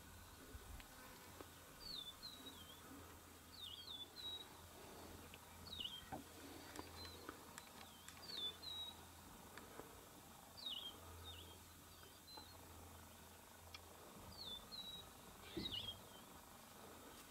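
Faint bird calls: short high chirps that drop sharply in pitch, often in pairs, repeating every second or two over quiet open-air background.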